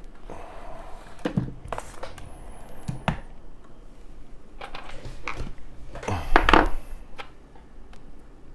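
Handling noise of a gutted padlock and its small metal parts being moved about: scattered light metallic clicks and knocks, with a louder bump and rustle about six and a half seconds in.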